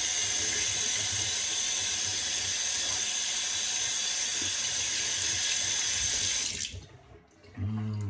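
Tap running steadily into a sink while a shave-soap tin is rinsed off under it. The water cuts off suddenly about six and a half seconds in.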